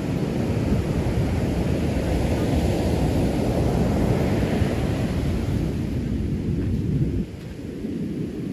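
Ocean surf breaking on the shore, mixed with wind buffeting the microphone: a steady low rumble that eases a little about seven seconds in.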